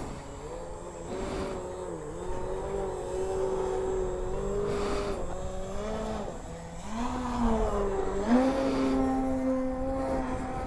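Engine of a radio-controlled aerobatic model airplane running as it flies overhead, its pitch dipping and climbing again several times as the plane swoops and passes, then holding higher near the end.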